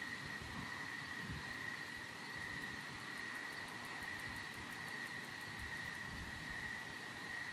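A steady, high-pitched chorus of night insects, likely crickets, trilling without a break. Under it is an uneven low rumble of wind on the microphone.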